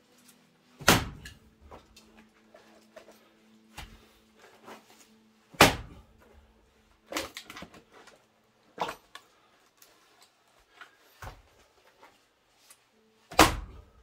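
Splitting axe striking larch rounds: three loud chopping blows about four to five seconds apart, with lighter knocks of wood between them as the rounds crack apart.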